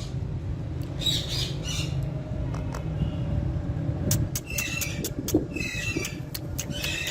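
Ringneck parrots squawking: one harsh call about a second in, then a run of repeated calls from about halfway through, with a few sharp clicks and a steady low hum underneath.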